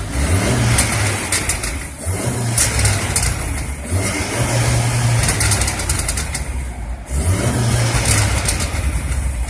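Alfa Romeo 159's tuned 1750 TBi turbocharged four-cylinder engine revved about four times (near the start, about two seconds in, about four seconds in and about seven seconds in), with popping and crackling from the exhaust on the overrun as the revs drop between blips, the sign of a pops-and-bangs tune.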